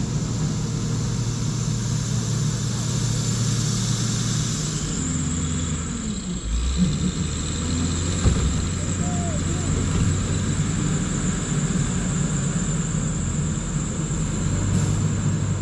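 Heavy diesel engine of a truck or earthmover running steadily; its pitch steps down about five seconds in, and a couple of knocks come near the middle.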